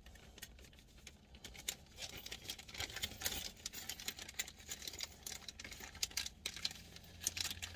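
Rummaging through a bag of small screws: rustling with many irregular little clicks and clinks as the screws are picked through.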